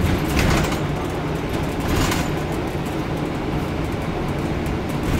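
Scania N230UD double-decker bus running on the road, heard inside from the upper deck: a steady low drone from its five-cylinder diesel engine with road noise. Two brief louder bursts of hissy noise come near the start and about two seconds in.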